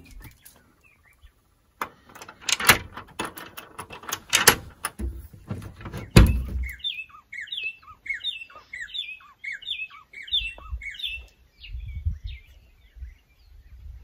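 A wooden balcony door being unlatched and opened, with a string of sharp clicks and knocks. A bird then sings a fast run of short, repeated downward-slurred chirps.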